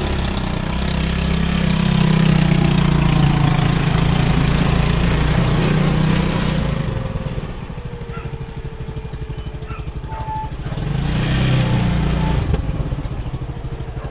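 A small engine running with a steady fast pulse, loud for the first several seconds, easing off, then growing louder again for a moment near the end.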